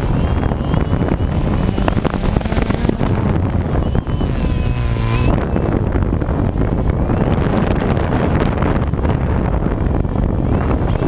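Drone motors and propellers whirring close to the onboard camera's microphone, with wind buffeting the microphone. About four seconds in, a whine wavers in pitch and cuts off a second later, as the drone ends up down in the grass.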